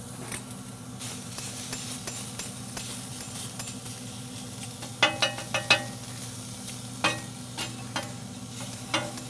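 Paper-thin sliced onions sizzling on a hot cast iron griddle, while a metal spatula scrapes and clicks against the iron, with a cluster of sharp scrapes about five seconds in.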